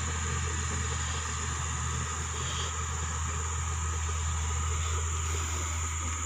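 Bulldozer's diesel engine running steadily: a low, even drone.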